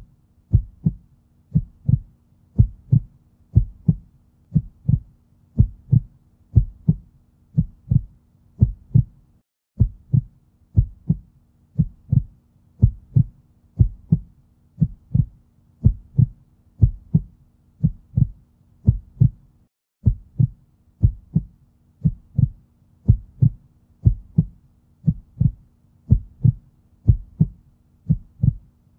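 Heartbeat sound effect: paired low thumps, about one beat a second, over a faint low hum that cuts out briefly twice.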